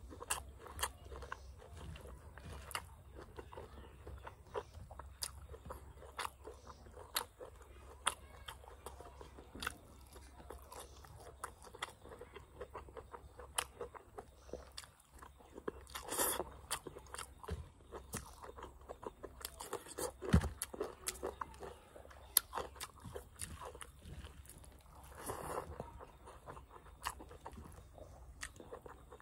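Close-miked chewing of mutton curry with rice eaten by hand: many soft, wet smacks and small crunching clicks from the mouth. A single dull knock stands out about two-thirds of the way through.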